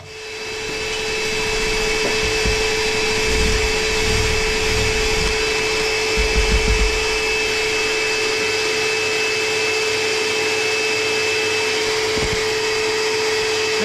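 Cordless drill with a hole saw cutting into a stud wall: low rumbling knocks between about two and seven seconds in. A steady motor hum with a fixed pitch runs underneath throughout.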